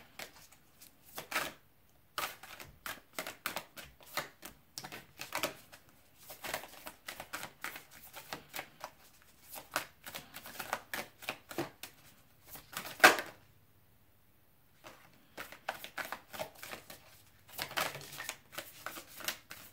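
A deck of oracle cards being shuffled by hand: runs of quick flicking and slapping of card edges, broken by a few short pauses, with one louder snap about 13 seconds in.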